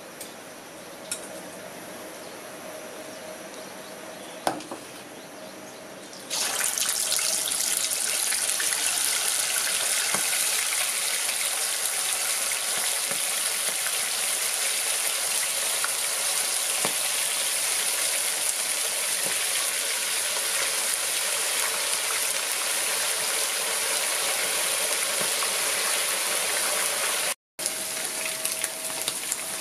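Hot oil in a frying pan hissing faintly with a few small pops. About six seconds in it breaks into a loud, steady sizzle as marinated pork spare ribs deep-fry in it, briefly cutting out near the end.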